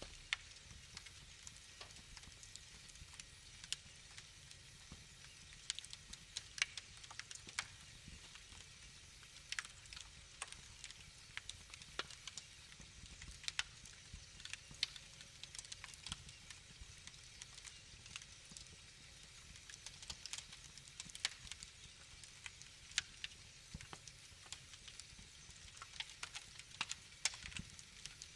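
Wood fire in a fireplace crackling: irregular sharp pops and snaps, some louder than others, over a low steady rumble of the flames.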